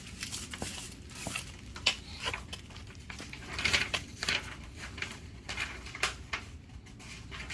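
Handling noise: scattered rustles, clicks and light taps of hands working over a stainless steel gas forge and its plastic packaging.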